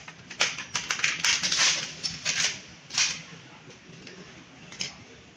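A quick run of sharp clicks and rattling, densest between about half a second and two and a half seconds in, then single clicks near three and five seconds in.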